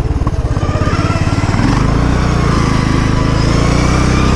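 Engine of an engine-swapped Poulan riding lawn mower running under throttle. Its separate firing pulses even out into a steady drone about a second and a half in.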